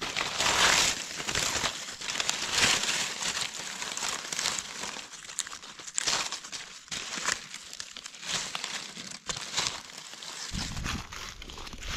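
Dry fallen leaves crackling and rustling in irregular bursts as gloved hands brush the leaf litter aside and dig a mushroom out of the ground. A low rumble comes in near the end.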